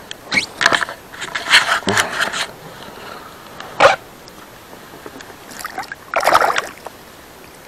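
Water splashing and sloshing beside an inflatable boat in several short bursts as a caught pike is handled over the side and released, with one sharp slap just before four seconds in.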